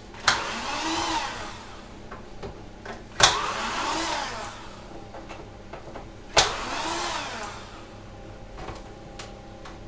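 A small power screwdriver whirring three times, about 3 s apart. Each run starts with a sharp click, speeds up and winds down, undoing the screws to open the pressure washer's housing.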